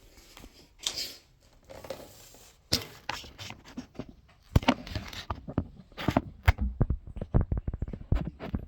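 Rustling and scraping with a run of quick knocks and clicks, which gets busier about halfway through.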